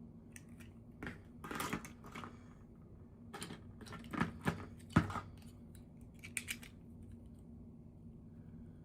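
Hands handling toy packaging and small plastic pieces: a string of rustles and sharp clicks, the loudest click about five seconds in, over a faint steady hum.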